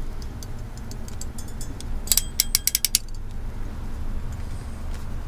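Ratcheting RJ modular-plug crimper clicking as its handles are squeezed shut, crimping an 8-pin plug onto a cable. There are light scattered clicks, then a fast run of about eight sharp clicks a little past two seconds in.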